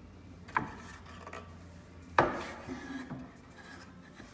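Western red cedar chair parts being handled and fitted together: two sharp wooden knocks, the louder about two seconds in, each followed by lighter rubbing and knocking of wood on wood.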